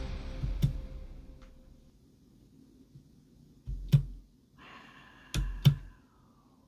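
The last notes of an electronic song's outro ring out and fade away over the first two seconds. Then a few sharp clicks and knocks with a low thud: one about four seconds in, and two close together about a second later.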